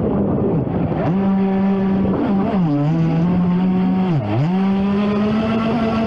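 RC jet boat's motor and water-jet drive running hard at a steady pitch, dipping twice as the throttle eases off and coming back up, with water rushing and splashing against the hull.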